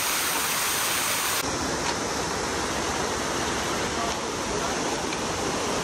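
Steady rushing and splashing of a small waterfall pouring into a rock pool. About a second and a half in, the sound cuts to a slightly quieter but similar steady rushing noise.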